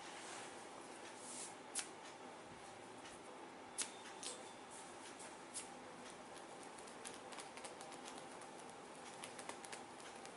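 Hands working over a head and hair during a massage, making faint rustles and scattered sharp little clicks, with a run of small quick ticks in the second half.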